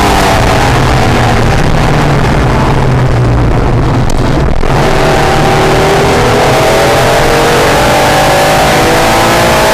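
Honda/Acura NSX's V6 engine heard from on board at speed, with loud wind and road noise. The engine note falls as the car slows, briefly drops away about four seconds in, then rises steadily under hard acceleration through the rest.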